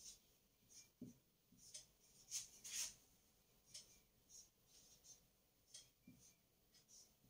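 Faint marker strokes on a whiteboard as figures are written: short, irregular scratchy squeaks, the loudest two about two and a half to three seconds in.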